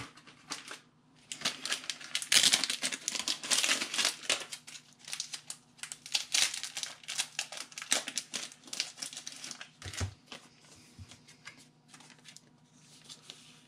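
Plastic crinkling and rustling as a packet of trading-card sleeves is handled and a clear sleeve is drawn out. The crackling is busiest in the first few seconds and thins out toward the end, with a couple of soft knocks partway through.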